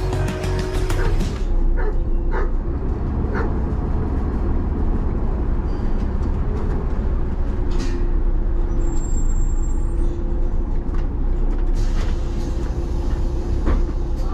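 City bus running, heard from inside: a steady low engine rumble with a steady whine over it, and a few scattered clicks and knocks.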